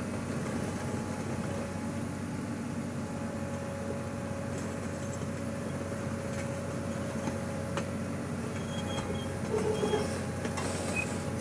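Komatsu hydraulic excavator's diesel engine running steadily as the machine holds and pulls a loaded truck out of a ditch, with a few faint clicks near the end.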